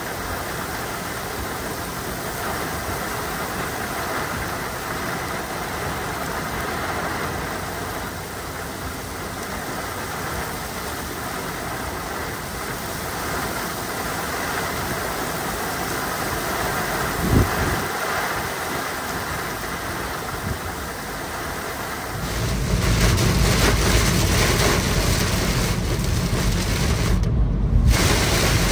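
Heavy thunderstorm rain falling steadily, with a single brief knock about two thirds of the way through. Near the end it gives way to the louder, deeper rush of a car driving through the downpour.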